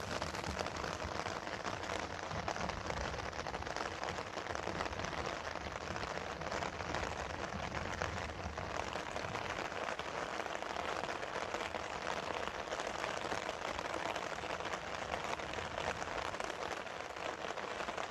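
Steady rain falling, a dense, even hiss of drops.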